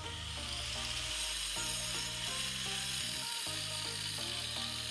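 Electronic background music with a bass line that steps between notes and a short repeating melody, over a faint steady high hiss from an angle grinder cutting masonry.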